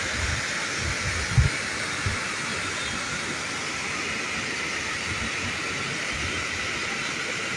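Floodwater rushing and churning over a dam's concrete overflow weir: a steady, even rush of white water. A few low thumps sound in the first two seconds.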